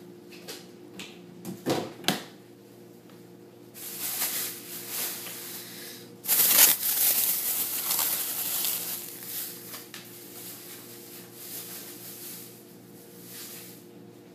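Groceries being handled: a few light clicks and knocks, then a plastic grocery bag rustling and crinkling, loudest about six seconds in and dying away near the end.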